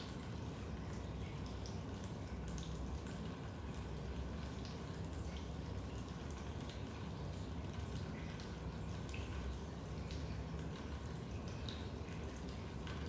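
Raindrops dripping into a basement: scattered, irregular drips over a steady low rumble.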